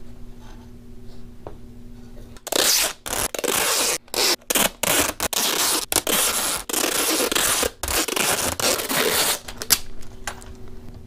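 Tape being pulled off a roll in a run of loud tearing pulls, some long and some short, with brief breaks between them. The pulls start about two seconds in and stop near the end.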